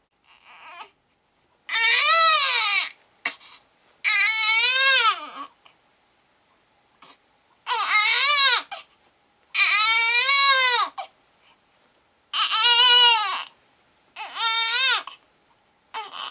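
Baby crying in repeated wails, about six of them, each about a second long with the pitch rising and falling, with short pauses for breath in between.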